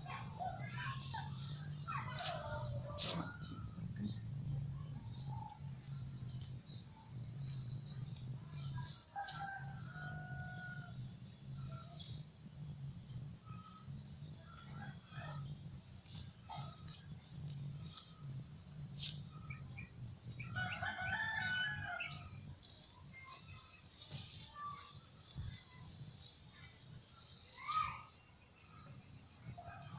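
Rural outdoor ambience: a steady high insect buzz and scattered bird chirps, with a rooster crowing once about two-thirds of the way through.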